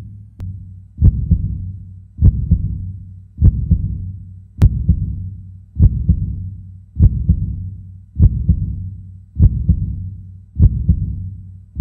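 Slow heartbeat sound effect: a double thump about every 1.2 seconds, repeating steadily over a low hum.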